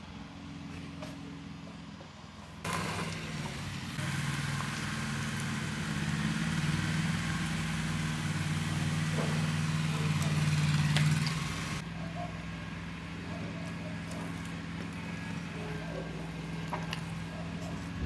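Cola poured into a glass over ice and fizzing, a hiss that starts sharply about three seconds in and cuts off about twelve seconds in, over a steady low engine hum.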